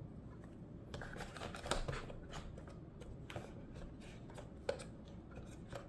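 Hands handling a tablet keyboard case and its cardboard packaging: scattered light taps, rubs and scrapes as the case is set into the box insert.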